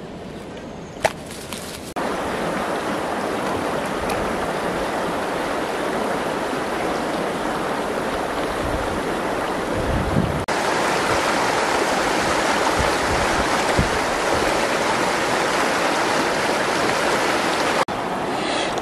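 Steady rushing of a flowing river, starting sharply about two seconds in after a quieter stretch with a single click.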